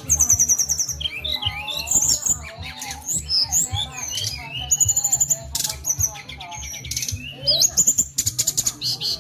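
A small songbird in full song: a rapid, varied run of high chirps, trills and whistles with hardly a pause, over a steady low hum.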